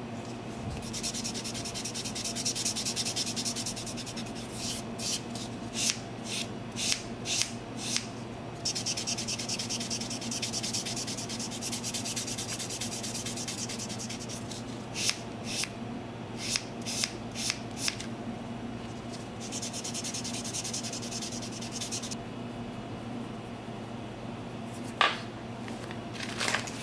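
A nail buffer rubbing over fingernails: stretches of steady sanding hiss alternate with runs of short, quick strokes. A single sharp tap near the end.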